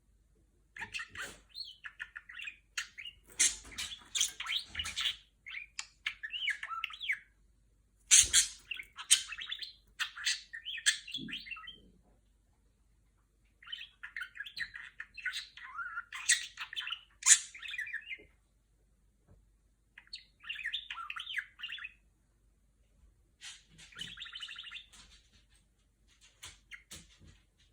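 Budgerigar chattering: fast warbling and chirping phrases of a few seconds each, broken by short pauses.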